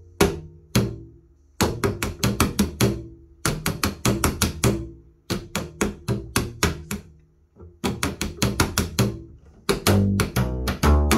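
Upright double bass slapped rockabilly-style: rapid clusters of sharp percussive clicks as the strings snap against the fingerboard, over low plucked notes, playing drag quads combined with triplets. Short gaps break the pattern, and from about ten seconds in it gets louder with fuller low notes.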